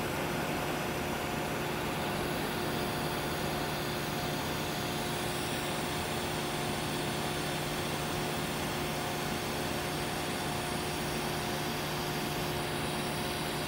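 Low-amperage DC TIG arc (28 A) welding thin 1 mm titanium exhaust tubing: a steady, even hiss with a constant low hum underneath.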